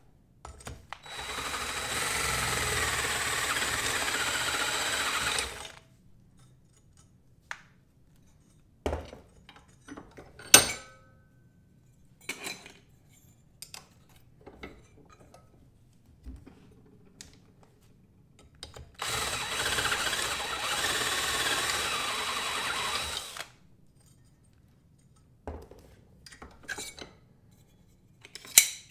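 DeWalt cordless drill with a step bit drilling out the slot of a metal mounting bracket held in a bench vise: two steady runs of about four to five seconds each, with a thin whine. Between the runs come short knocks and clicks of the bracket and vise being handled, and one sharp metal clank near the middle.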